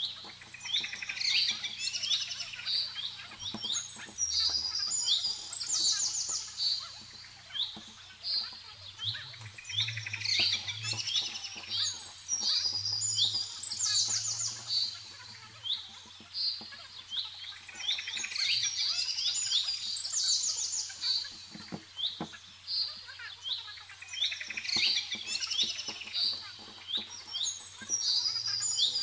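Small birds chirping and twittering in quick high-pitched phrases that recur every few seconds.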